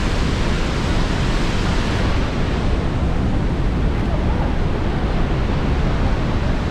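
Steady, loud roar of the Horseshoe Falls at Niagara, its water pouring down close to the deck, with wind and spray buffeting the microphone.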